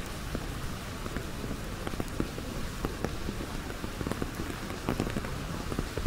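Rain falling on an umbrella held overhead: a steady hiss of rain with many irregular taps of drops striking the canopy.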